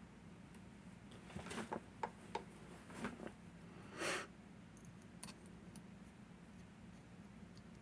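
Light clicks and taps, then a brief scrape about four seconds in, from lock picks and a tension tool being handled and set into a lever padlock as picking begins.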